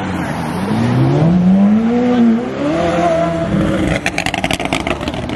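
McLaren supercar engine revving as it pulls away, its pitch rising and falling, then a rapid string of exhaust pops and crackles (burbles) on lifting off the throttle about four seconds in.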